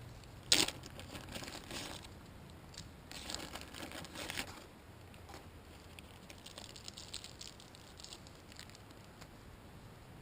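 Packaging being handled and crinkled: a sharp crackle about half a second in, two longer bouts of crinkling, then lighter clicks and rustles.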